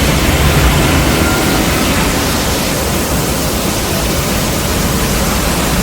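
A steady, loud rushing noise with no pitch, part of a dinosaur-monster sound effect, with a low rumble under it in the first second or so.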